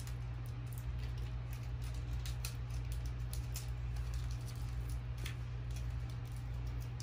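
Small gum packs being unwrapped by hand: irregular light crinkles and crackles of the wrappers, over a steady low hum.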